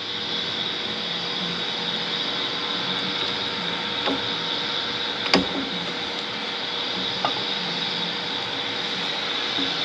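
Three light metal clicks, the sharpest about five seconds in, as a milling machine's vise and table crank are handled, over a steady machine-like hum.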